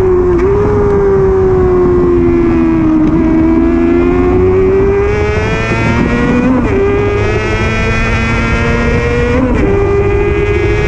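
Honda Hornet 250's 249 cc inline-four engine running at very high revs under hard riding on track, heard from on the bike. Its pitch sinks and climbs with the throttle, and it drops sharply at two upshifts, about two-thirds through and near the end.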